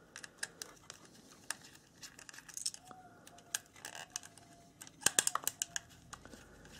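Light clicks and small rattles of a screwdriver and tiny screws being worked out of a timer switch's plastic housing and circuit board. A quick flurry of clicks comes about five seconds in.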